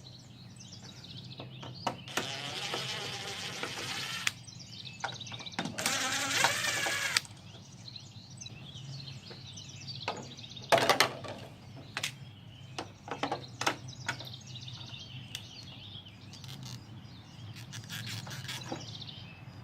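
Small electric motor whirring in two runs of about two seconds and a second and a half, typical of a cordless drill-driver on screws. Scattered clicks and taps of handled parts follow, the sharpest about eleven seconds in.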